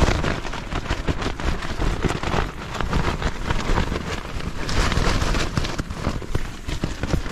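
Rain falling on a small tent's fabric, heard from inside the tent as a dense stream of small drop ticks.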